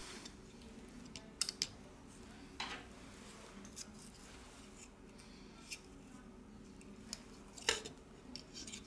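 Faint, scattered clicks and light taps of a smartphone's motherboard and a pry tool being handled as the board is lifted out of the phone's frame, the sharpest click near the end.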